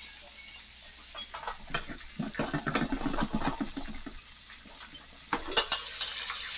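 Metal knocks and clinks of a stainless-steel pressure cooker's lid being turned and worked loose. A little after five seconds in the lid comes off and the hot oil frying the chicken inside breaks into a steady, loud sizzle and bubbling.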